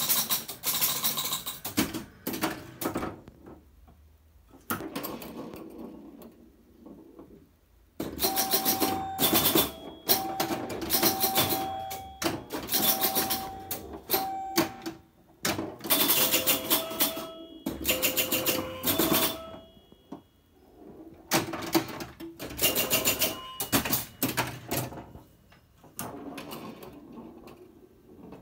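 Bally Night Rider electromechanical pinball machine in play: rapid clacking of score reels, relays and coils as the bumpers and targets are hit, mixed with short ringing scoring tones. The action comes in busy bursts with a few brief lulls between them.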